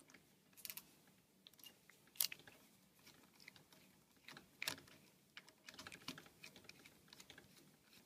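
Faint scattered clicks and small scrapes of a small screwdriver turning the screws of a green screw terminal block on a perfboard to free the motor's leads. The sharpest clicks come about two seconds in and just before the five-second mark.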